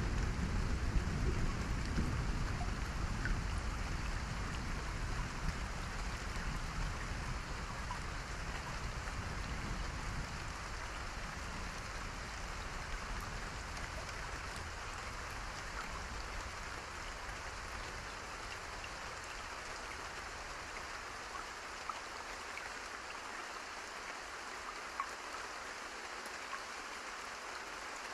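Steady rain falling: an even hiss with scattered single drops. A low rumble at the start fades away over the first several seconds.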